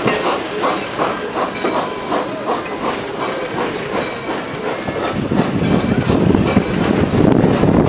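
Passenger coach wheels clicking over rail joints at low speed, a steady clickety-clack of about two to three clicks a second. About five seconds in, a louder rushing noise rises over the clicks.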